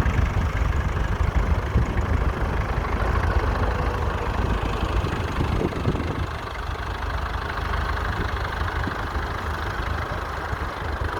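Fordson Model N tractor's four-cylinder engine running steadily at low revs, a little quieter in the second half.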